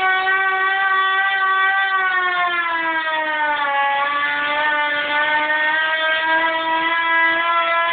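LK-100P siren sounding one continuous tone. The pitch holds steady, drops a little about two to four seconds in, then slowly rises back.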